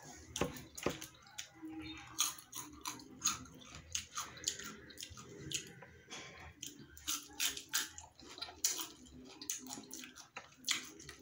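Close-up eating of firm mango slices: repeated crisp crunching bites and chewing, mixed with wet mouth sounds, in quick irregular succession.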